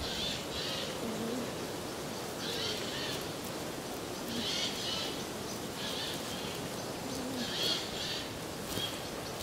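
Alpacas humming: a few short, soft hums about three seconds apart, over a steady background hiss.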